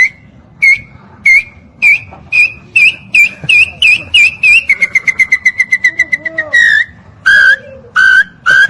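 Whistled call of the Maranhão nambu, a tinamou: a series of short whistled notes on nearly one pitch that come faster and rise slightly, running into a quick trill about five seconds in. Near the end come a few slower, lower notes.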